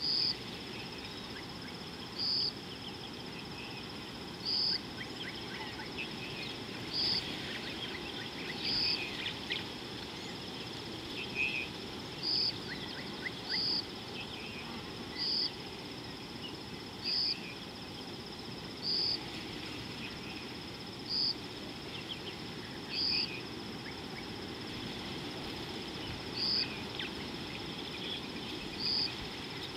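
Insects chirring: a steady high-pitched buzz with a louder shrill chirp repeating about every two seconds, with faint scattered bird calls over a low steady background noise.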